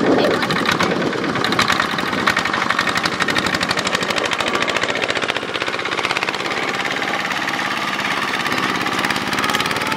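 Single-cylinder diesel engine of a Kubota two-wheel walking tractor running steadily with a rapid, even knock as it hauls a trailer through deep mud.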